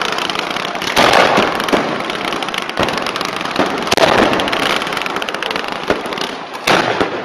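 Close-range fireworks barrage: rockets launching in quick succession with continuous crackling, and louder bangs about a second in, about four seconds in and near the end.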